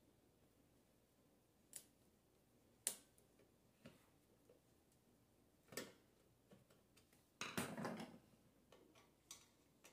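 Scattered sharp clicks and taps of a screwdriver working screws into a metal chair frame, then a louder clatter and rustle lasting under a second about seven and a half seconds in.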